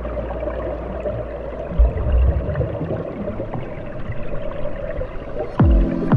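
Underwater ambience: a steady rushing, gurgling water noise with a few low thumps about two seconds in, and two quick downward-sweeping tones near the end.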